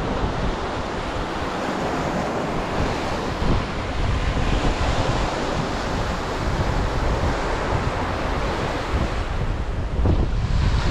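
Surf washing onto the beach, with wind gusting against the microphone in a steady low rumble.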